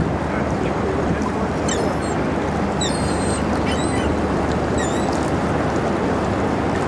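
Steady low rumble and rushing wash of a lake freighter passing close by. Several short, high bird calls come between about two and five seconds in.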